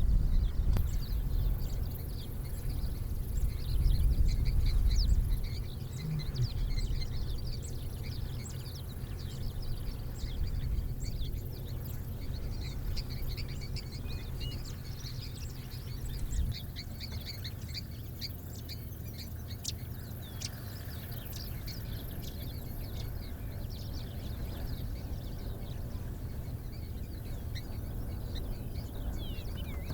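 Savanna birds chirping, with many short, quick calls throughout, over a low rumble that is loudest in the first five seconds.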